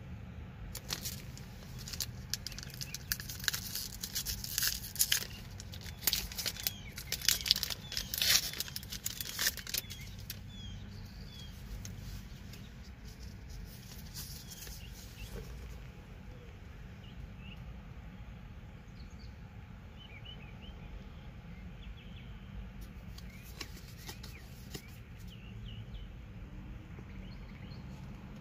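A trading card pack's shiny wrapper being torn open and crinkled in the hands: dense crackling for the first several seconds. After that the crackling stops, leaving a low steady rumble with faint high chirps.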